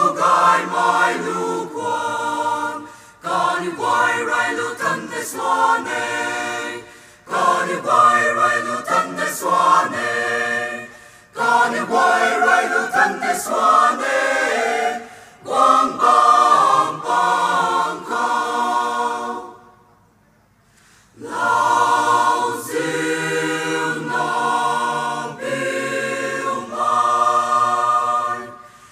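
Mixed choir of women's and men's voices singing in parts, in phrases with short breaks between them and a full pause of about a second around two-thirds of the way through.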